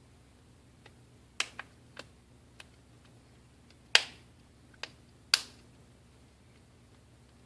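A scattered series of sharp clicks and taps from small phone parts and repair tools being handled during reassembly of a Nokia Lumia 928. The two loudest come about four and five and a half seconds in.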